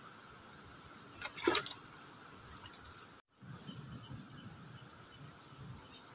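Steady rush of a fast-flowing river, with one brief sharp noise about a second and a half in. The sound drops out completely for a moment just past halfway.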